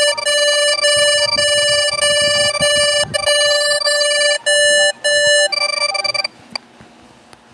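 Synthesized emergency-alert tone in the style of an Emergency Alert System alarm: loud, steady electronic tones with a few short breaks. The pitch changes about five and a half seconds in, and the tones cut off suddenly about a second later.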